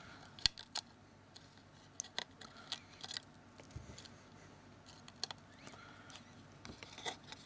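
Scattered faint clicks and light taps of small parts and tools being handled on a phone's case, as a home-key ribbon cable is fitted into its groove.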